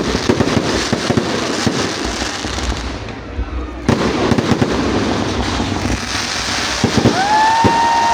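Fireworks and firecrackers going off in dense, rapid crackling pops, easing briefly about three seconds in before resuming. Near the end a steady tone begins over the pops.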